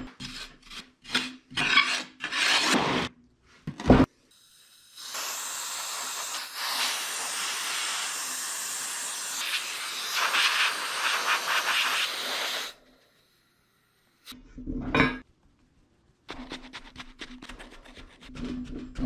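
Moulding sand being worked in a sand-casting flask: a steel bar scraped across the flask top to strike off the sand, a sharp knock, then several seconds of steady gritty scraping of sand. Near the end, quick rhythmic tapping and scraping as loose sand is tucked into the flask.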